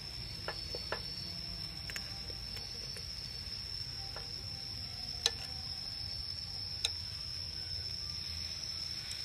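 Chopsticks working among chicken pieces in a metal pot, with a few sharp clicks as they knock against the pot, the two loudest a little after halfway. Underneath runs a steady high-pitched whine and a low rumble.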